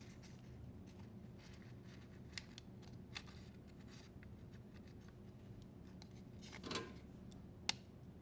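Quiet handling of a dishwasher's DC wire harness and its plastic plug at the control board. A few light clicks, then a short rustle, then a sharper click near the end.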